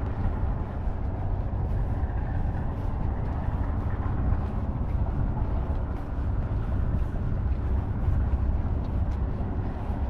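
Steady low rumble of motor vehicle engines, with a faint hum and no break.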